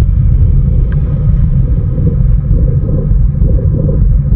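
Continuous heavy low rumble of water noise picked up by a camera submerged underwater.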